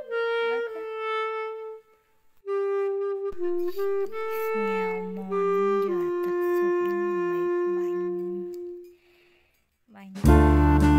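Background music: a slow woodwind melody of held notes, with a lower second part joining in the middle. It pauses briefly about two seconds in and again near the end, then a louder, fuller passage starts.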